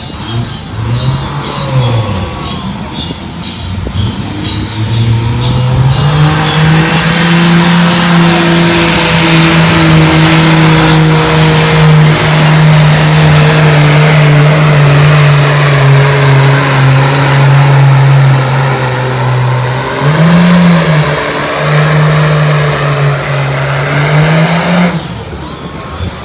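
Case IH pro-stock pulling tractor's diesel engine pulling flat out under heavy load as it drags the weight-transfer sled. It revs up a few seconds in and then holds a steady high note. About 20 seconds in the revs dip briefly and come straight back, and the engine drops off near the end as the pull finishes.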